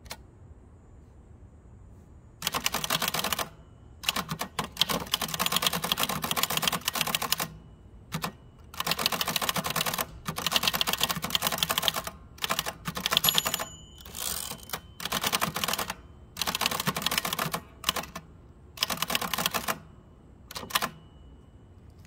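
1949 Adler Favorit 2 thrust-action portable typewriter being typed on, starting about two seconds in. Its keystrokes clatter in fast runs of a second or two, separated by short pauses.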